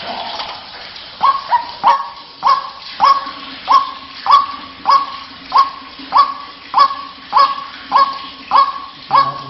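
White-breasted waterhen calling: a steady run of short, harsh notes, each dropping in pitch, coming nearly twice a second. A faint low drone runs underneath from about three seconds in.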